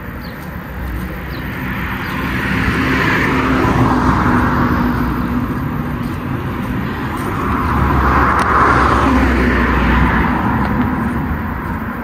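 Two cars passing by on the street one after the other, each swelling up and fading away with tyre noise and engine. The first is loudest about four seconds in, the second about nine seconds in.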